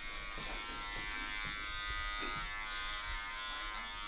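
Electric hair clippers running with a steady buzz while cutting a fade.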